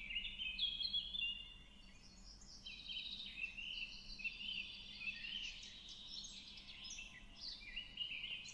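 Many small birds chirping and twittering at once, in a dense chorus of short, overlapping rising and falling notes that thins briefly about two seconds in.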